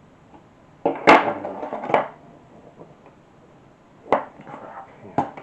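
Plastic case of an Atari 410 cassette program recorder knocking and rattling as it is handled and opened: a burst of clatter about a second in, then two sharp knocks near the end.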